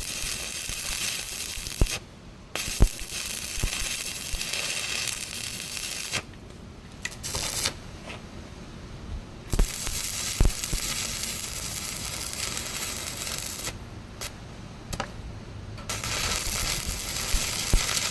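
Electric arc welding: the arc crackling and sizzling steadily in runs, broken off several times (about 2 seconds in, for a few seconds around the middle, and again near the end) with sharp clicks and taps in the pauses.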